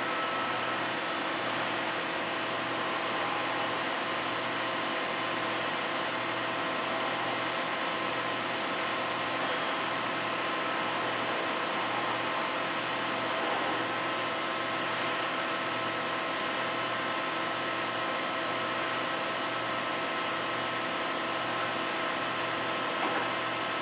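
Daewoo ACE-H100 horizontal machining center running with its geared-head spindle turning at 200 RPM: a steady whir and hum with several faint steady tones.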